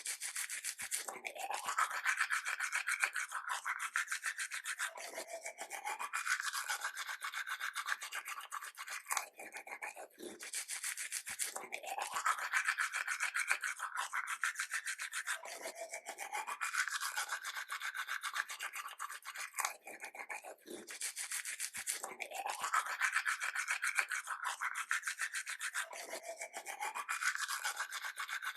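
Toothbrush scrubbing teeth in rapid short strokes. The same few seconds of brushing repeat about every five seconds.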